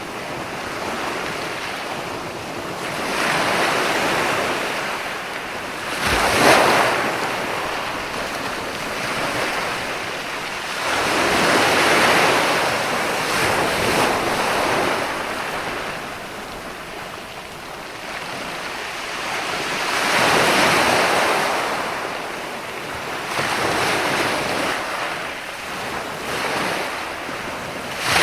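Ocean waves surging and washing in, swelling and ebbing every few seconds, with a sharper, louder break about six seconds in.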